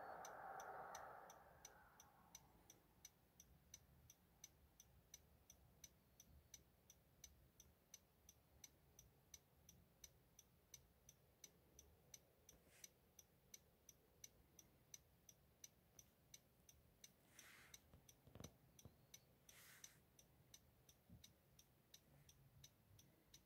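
Near silence with a faint, strictly regular ticking, a little over two ticks a second. A louder noise fades out over the first two seconds.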